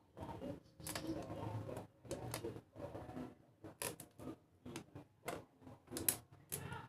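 Hand tools and metal parts of a wood planer being handled while its knives are fitted: an irregular run of clicks, knocks and short scrapes.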